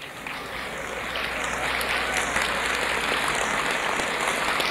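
Audience applauding, a steady patter of clapping that builds a little over the first second or so.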